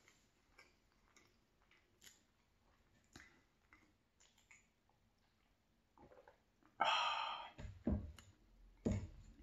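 Quiet mouth sounds and small clicks of sipping and swallowing from a stainless steel mug, then a loud breathy exhale after the drink, followed by two low dull thumps as the mug is set down on the wooden board.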